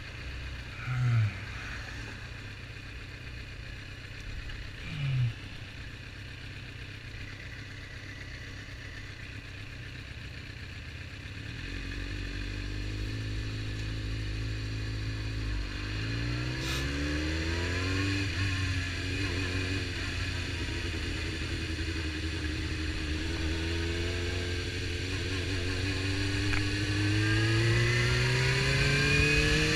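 Suzuki GSX-R750 inline-four engine on the move, running fairly low at first with two short louder sounds about one and five seconds in. From about twelve seconds in it accelerates, pitch rising, drops back at a gear change, then climbs again through a long rise, getting louder toward the end.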